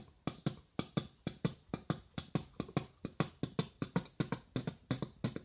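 Beatboxed heartbeat: quick paired lub-dub thumps made with the mouth, repeating steadily at about four strokes a second.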